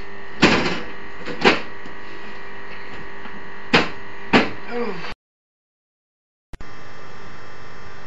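Sheet-metal side panel of a desktop PC case being fitted and shut: four sharp clacks against the case over about four seconds, over a steady hum. The sound then drops out completely for about a second and a half and comes back with a click.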